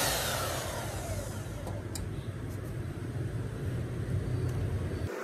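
Bosch GBH 5-40 DC rotary hammer's motor winding down after being switched off from running unloaded in rotation mode: its whine falls in pitch and fades over about a second. A low steady rumble follows, with a light click about two seconds in, and the rumble cuts off sharply near the end.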